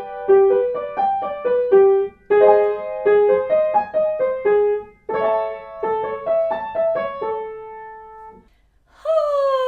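Piano accompaniment for a vocal warm-up exercise: a short up-and-down note pattern played three times, each time a half step higher, the last ending on a held note. After a brief pause, a smooth falling glide begins near the end.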